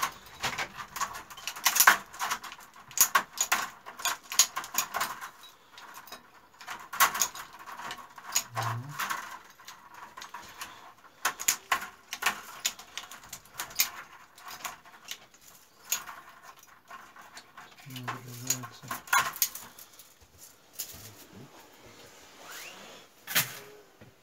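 Secateurs snipping through willow rods one after another, a sharp click with each cut at an uneven pace of about one a second: the upright stakes of a cone-shaped willow basket being trimmed to height. The cuts thin out near the end, with one last loud snip.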